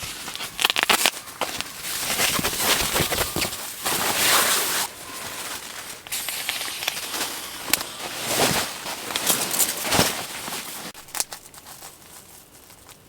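Irregular rustling and crinkling of a crinkly material, rising and falling in loudness, with many sharp crackles; it thins out near the end.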